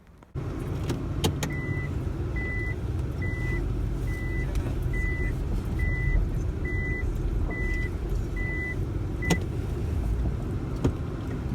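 Inside a car with the engine running, a steady low rumble, while an in-car warning beeper sounds ten short, high, even beeps, a little more than one a second, starting just after a click and stopping with another click.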